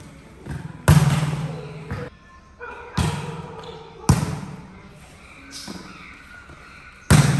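A volleyball being struck back and forth in passing practice: sharp slaps of hands and forearms on the ball at irregular intervals, the loudest about a second in, at three and four seconds, and near the end, each one echoing under the metal roof.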